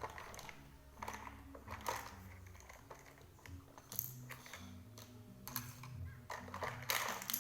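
Small plastic toy pieces being handled: scattered light clicks, taps and rustles, as toy ice creams and cones are taken out and put together.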